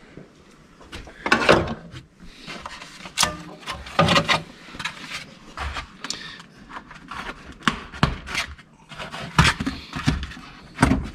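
Irregular clicks, knocks and rubbing as hands work on parts inside a hybrid car's IMA battery compartment.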